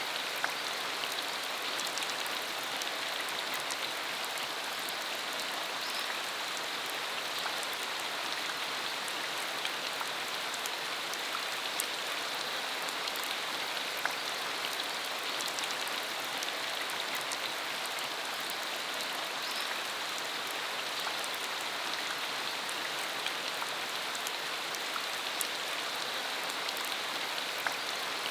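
Steady rain falling, an even hiss with many small drop ticks scattered through it and no change in strength.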